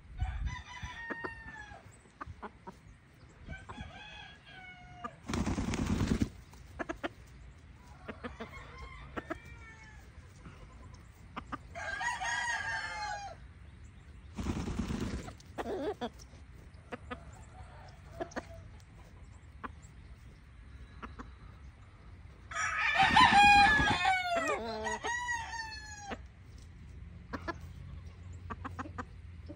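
Roosters crowing again and again, with shorter clucking calls between, the loudest crow about two-thirds of the way through. Three short bursts of rustling noise come in among the crows, the loudest together with that crow.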